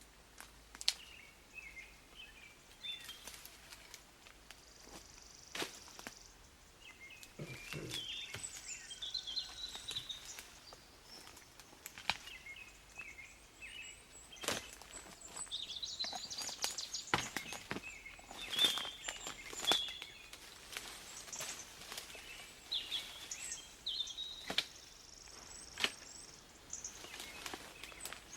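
Songbirds calling and trilling, with scattered sharp knocks and clicks in between.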